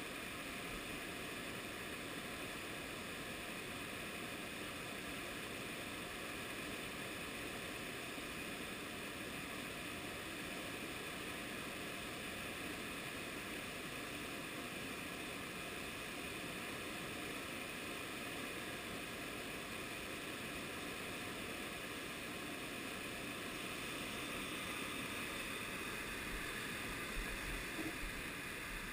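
Whitewater river rapids rushing below, a steady even rush of water. A few low thumps of camera handling or wind come in near the end.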